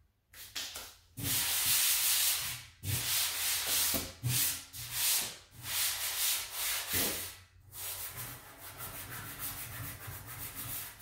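A hand rubbing back and forth over the black metal lid of a Tuffy deck enclosure, wiping at marks to see whether they are cardboard scuffs or scratches in the finish. Long, firm strokes at first, then from about eight seconds in quicker, lighter ones.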